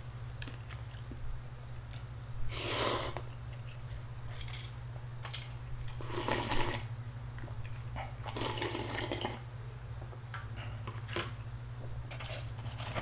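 Slurping ramen noodles and broth from a bowl: three long slurps a few seconds apart, with small eating noises between them, over a steady low hum.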